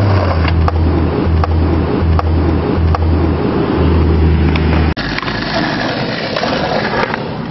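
Skateboard wheels rolling on concrete, a loud low rumble that breaks off abruptly about five seconds in and gives way to a lighter, even rolling noise.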